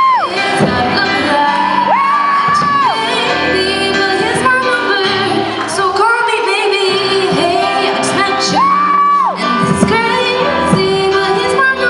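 Pop song with singing over instrumental backing; a long held high note swoops up and is sustained about two seconds in, and again near nine seconds.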